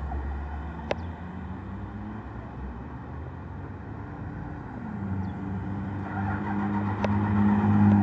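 Cars driving past on the street. The second one, an SUV, passes close and builds to the loudest point near the end, its engine note dropping as it goes by. Two light clicks can be heard, about a second in and about a second before the end.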